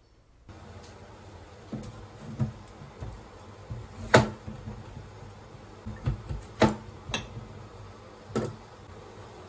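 Objects being handled in a small room: a scatter of short knocks and clicks over a steady room hiss, the three sharpest coming about four, six and a half and eight and a half seconds in.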